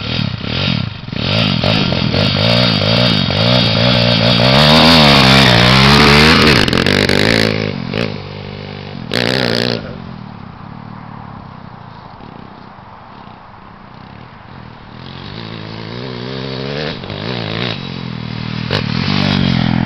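Pit bike engine revving hard as it pulls away, its pitch climbing and falling with the throttle. It fades as the bike rides off across the field, then grows louder again as it comes back.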